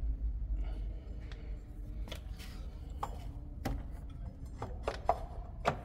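Sharp metal clicks and clinks of a hand tool on the front brake caliper's pad retaining pin as it is tightened, starting about two seconds in and coming irregularly, about seven in all.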